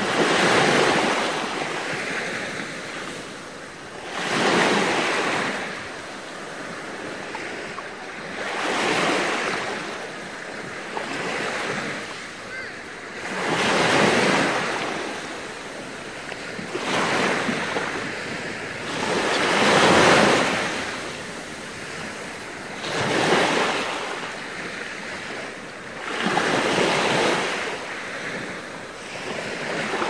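Small waves breaking and washing up a sandy shore, each one a hissing rush that swells and fades, about every three to four seconds.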